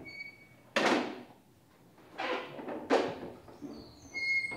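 Wooden doors of a temple shrine cabinet being handled and opened: three sharp wooden knocks, the last two close together, each trailing off briefly in the hall. Faint high chirps sound at the start and near the end.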